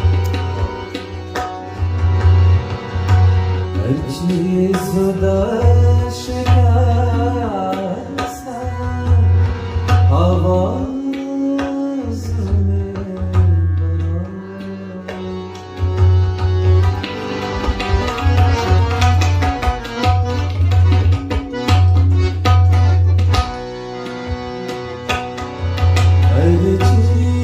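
Live Afghan ghazal: tabla with deep, ringing bass strokes from the bayan, under harmonium chords and a man's voice singing a gliding melodic line. The voice enters a few seconds in, drops out about halfway, and comes back near the end.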